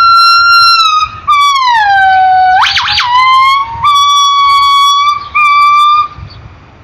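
Gibbon calling: a loud series of pure, whistling hoots. A held note is followed by a slow downward glide, a quick swoop up and back down about three seconds in, and then two shorter level notes.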